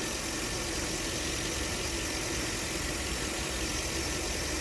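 Land Rover LR3's 4.4-litre V8 idling steadily.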